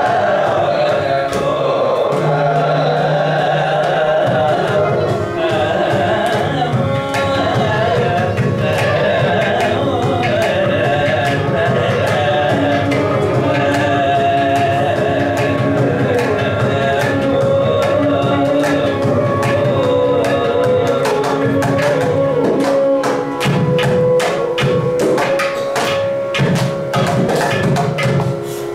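Carnatic vocal music: male voices singing with violin and mridangam accompaniment. The mridangam strokes come thick and fast near the end.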